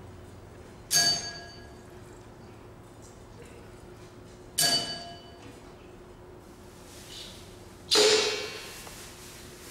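Three single strikes on small percussion objects, a few seconds apart, each a bright clang that rings for about half a second before dying away; the last is the loudest. A faint steady hum lies beneath.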